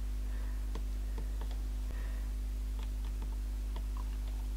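Faint, scattered small clicks of a screwdriver tip working at the seam of a Dyson V7 battery pack's plastic case, over a steady low hum.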